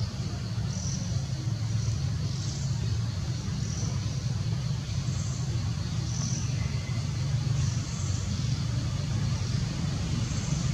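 Outdoor ambience: a steady low rumble, with faint high chirps about once every second or so.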